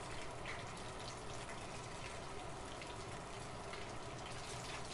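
Sea robin head and bone pieces sizzling in hot oil in a pan, a steady hiss with faint crackles: the bones being seared to build the base of a fish stock.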